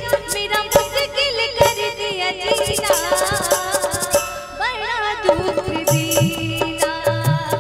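A woman singing a folk-style devotional song live into a microphone over amplified band music, with quick, steady percussion and a sustained drone-like tone underneath.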